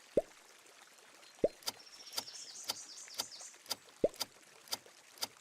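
Soft ticking about twice a second, with four short rising bubble-like bloops and a brief fizzing hiss around the middle.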